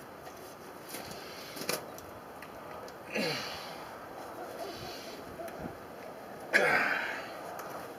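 A man grunting with forceful, breathy exhalations twice, about three seconds in and again near the end, the second louder; the strain of rolling a steel frying pan up by hand.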